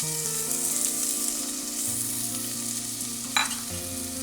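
Chopped onions sizzling in hot oil in a pan as they are stirred, with one sharp tap about three and a half seconds in.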